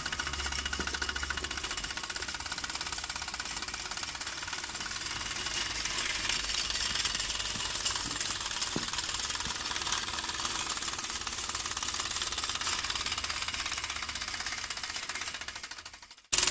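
Mamod SW1 toy steam wagon's single oscillating-cylinder steam engine, fitted with a 13 mm big-bore piston and cylinder, running fast with a rapid, even exhaust beat and steam hiss as the half-track moves. It fades away near the end.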